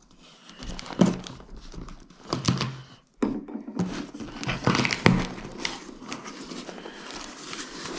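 A small knife slitting the packing tape on a cardboard box, then the tape tearing and the cardboard flaps being pulled open: a run of scrapes, rips and rustles, with a short pause about three seconds in.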